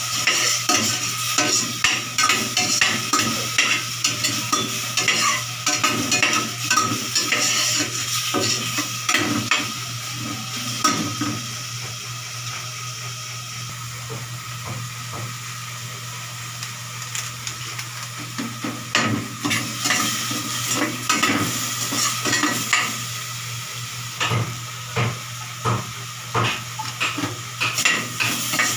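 Diced pork sizzling as it fries in a stainless steel pot, with a metal spoon stirring and scraping against the pot in frequent clinks. The stirring lets up for several seconds midway, leaving mostly the sizzle, then picks up again.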